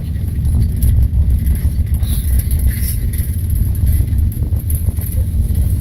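Steady deep rumble inside a moving aerial cable car cabin as it travels along the rope.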